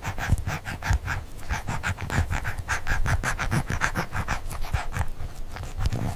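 A dog panting fast and evenly, about four or five breaths a second, over a low rumble.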